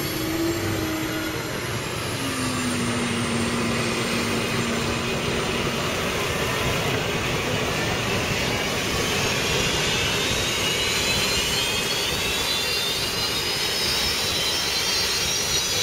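Gas-turbine engines of H1 Unlimited racing hydroplanes, a steady loud roar. Over the second half a high turbine whine rises steadily in pitch, like a turbine spooling up.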